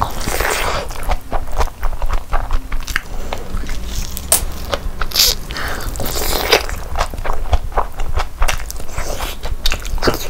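Close-miked eating: big mouthfuls of chicken biryani rice and tandoori chicken being bitten and chewed, with many short, irregular mouth clicks and wet chewing noises.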